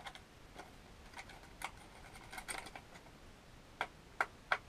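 Light clicks and taps from handling as a fire alarm is being wired up, with three sharper clicks near the end.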